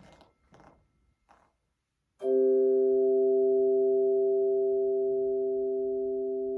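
Choir chimes (hand-held tuned tone chimes) struck together about two seconds in, after a brief near-silent pause, sounding a chord of several pure tones that rings on and slowly fades.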